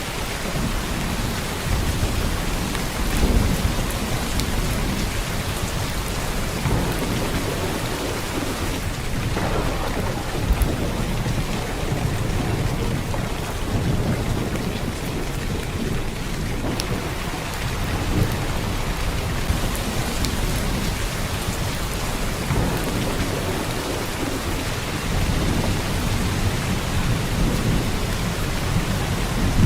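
Heavy downpour of rain: a steady dense hiss with a low rumble underneath that swells and eases every few seconds.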